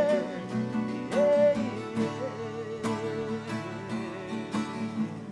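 Music: the closing bars of a sung Brazilian love song. A held, wavering sung note comes first, then plucked acoustic guitar carries on, with a few strummed chords.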